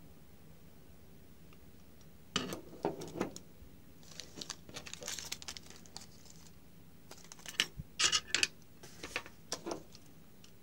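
Unboxing handling sounds: clear plastic packaging crinkling, with light knocks and clicks as the microscope's metal stand parts are handled and set down on a wooden workbench. It starts about two seconds in, the crinkling comes mostly in the middle, and sharper clicks come near the end.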